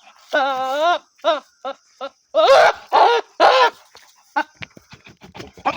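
Goat bleating: a quavering bleat about half a second in, a few short calls, then three loud, harsh bleats in quick succession, followed by a run of light clicks near the end.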